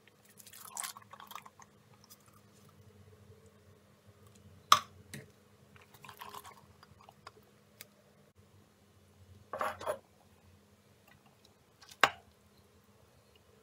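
Cooked black beans and rice being tipped into a slow cooker's ceramic crock of wet chicken stew, with soft wet slopping sounds. There are two sharp knocks against the crock, about five seconds in and near the end, over a faint steady low hum.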